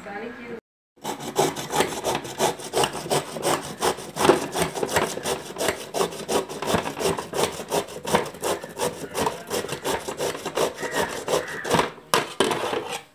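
Raw beetroot grated by hand on a stainless steel grater: quick, rhythmic rasping strokes that start about a second in and stop just before the end.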